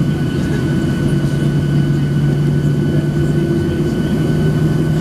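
Cabin noise of a Boeing 737-700 on the ground with its CFM56-7 engines at idle: a steady, even hum with a low drone and thin high whines, unchanging throughout.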